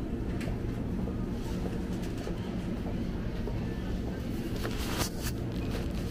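Town ambience: a steady low mechanical hum with faint voices, and a few sharp clicks about five seconds in.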